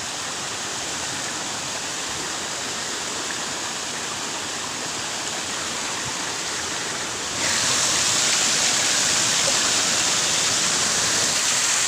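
Waterfall's rushing water, a steady even roar. About two-thirds of the way through it suddenly gets louder and brighter, then stays steady.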